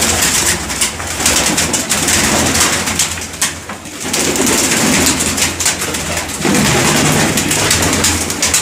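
A flock of domestic pigeons cooing inside their loft, with wings flapping as birds take off and fly about.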